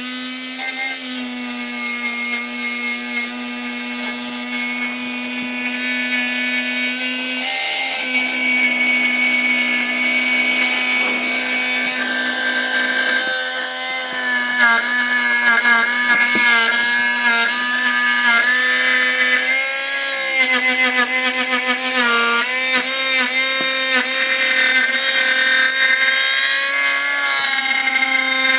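Spindle motor of a homemade CNC machine running steadily while its sharpened bit cuts a circle in UHMW plastic, with a rubbing, scraping cutting noise. Its pitch dips and wavers repeatedly through the second half.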